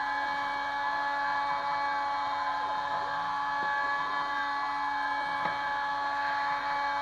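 Kress FME 800 spindle on a Stepcraft 2/420 CNC machine, running at 11,000 rpm while its end mill cuts aluminium: a steady high whine of several constant pitches, with the cutting noise holding even and a couple of faint clicks.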